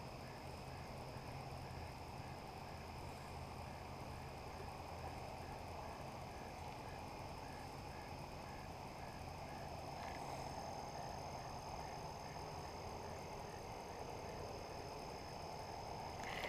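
Evening pond ambience: a steady high-pitched insect trill and a faint chirp repeating about twice a second, over a low distant hum.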